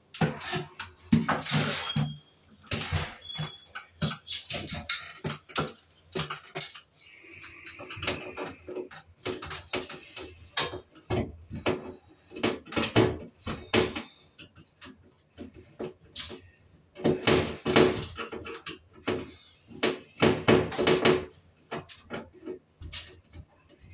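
Pliers working inside a sheet-metal fluorescent light fixture: irregular metal clicks, scrapes and rattles as parts are twisted and broken off, in busy runs with short pauses between.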